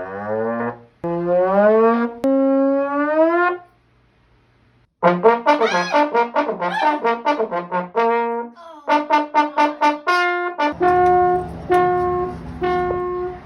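A brass instrument plays comic sound effects. It starts with sliding, bending notes, breaks off briefly, then plays quick runs of short notes, and near the end repeats one short note over a low rumbling noise.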